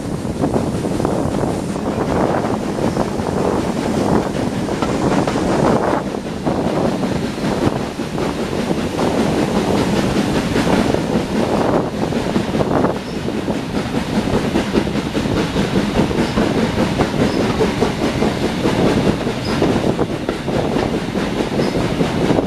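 Passenger coach of a steam-hauled heritage train running along the line, heard from an open carriage window: steady noise of wheels on the rails and rushing air, with irregular knocks from the running gear.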